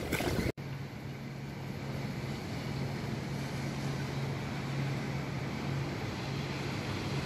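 A steady low machine hum over a constant rushing noise, starting after an abrupt cut about half a second in.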